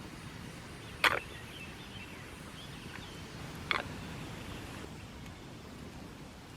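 Two sharp knocks, about two and a half seconds apart, the first one louder, over a steady low background with faint bird chirps.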